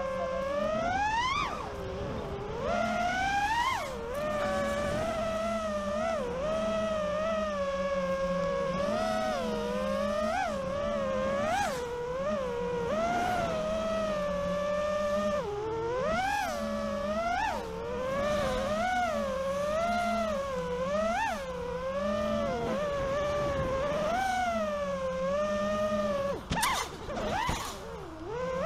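FPV freestyle quadcopter's brushless motors and propellers whining steadily, the pitch jumping up and falling back every second or two as the throttle is punched and eased through manoeuvres. The pitch drops away briefly near the end before climbing again.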